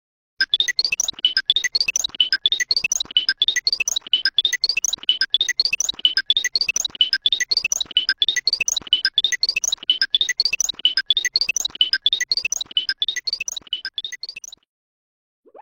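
Hanna-Barbera cartoon running effect, the 'wind whistle scat': a quick, steady string of short high rising whistles over a fluttering patter. It stops abruptly about a second before the end.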